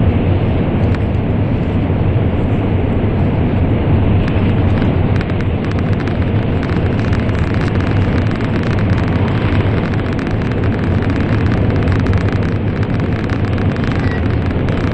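Steady, loud low rumble and rush of an N700-series Shinkansen running at speed through a tunnel, heard from inside the passenger cabin, with faint crackling ticks over it.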